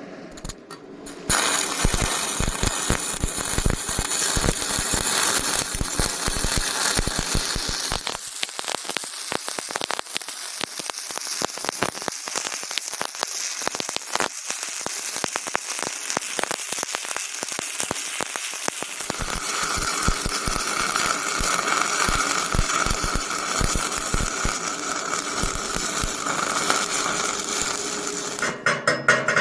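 Stick welding arc striking about a second in, then burning with a dense, steady crackle, with a higher steady tone added in the last third before the arc breaks off near the end.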